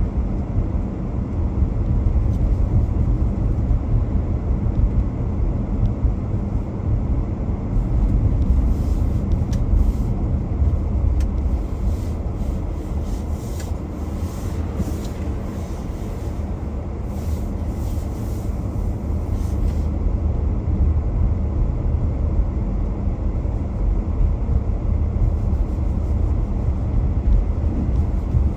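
Car driving at steady speed: continuous low road rumble of tyres and engine.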